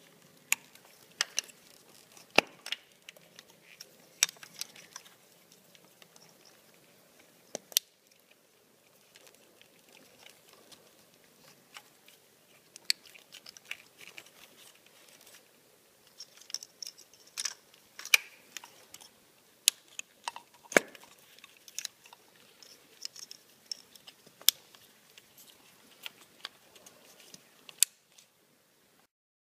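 Plastic ignition-coil connectors on a Honda CBR954 Fireblade being unplugged by hand and quickshifter splitter plugs pushed in, with the wiring loom rustling. Scattered sharp clicks, with a busier run of small clicks and rustling a little past the middle.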